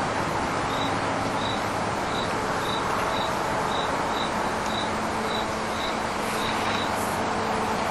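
A cricket chirping in short, even pulses about twice a second over a steady background hiss.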